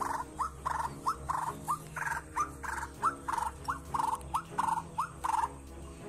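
White-breasted waterhen giving its 'ruak-ruak' call: a fast run of alternating notes, a short upswept one and a fuller one, about three a second, stopping near the end.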